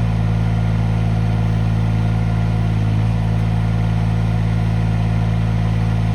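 SDLANCH ME20 mini excavator's Yanmar 3TNV74F three-cylinder inline diesel engine running at a steady speed, with an even, unchanging drone.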